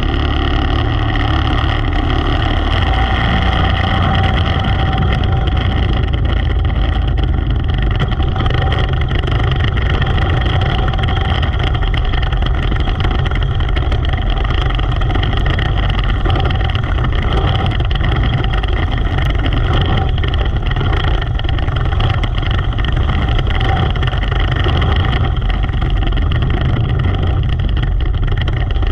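Race car engine running hard at a fairly steady pitch, loud and unbroken with a heavy low rumble, from a Predator 400 class car in a heat race.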